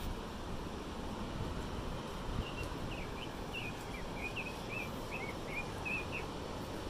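A small bird sings a quick run of short chirps, starting about two and a half seconds in and stopping near the end, over a steady outdoor rush of wind and distant surf.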